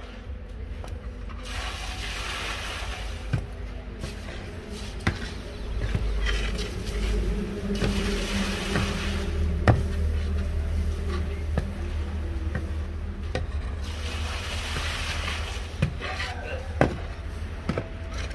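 Thick, hot jaggery being worked in its setting pan: swishing and scraping, with a few sharp knocks of the tool against the pan. Under it runs a steady low rumble.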